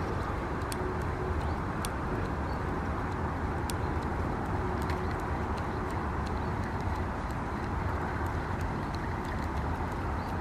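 Fixed-spool fishing reel being wound steadily as a feeder is retrieved across a pond, under a steady outdoor hiss, with a few faint clicks.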